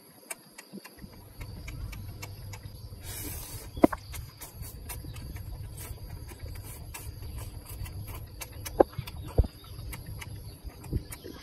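Eating sounds of instant noodles: a short hissing slurp about three seconds in, with wet mouth clicks and chewing throughout and a few sharp clicks near four and nine seconds, over a steady low rumble.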